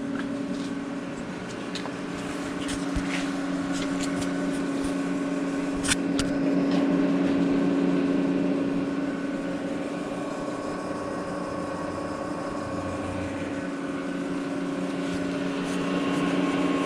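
Steady hum of running shop machinery, an electric motor, with a few light clicks and taps over it.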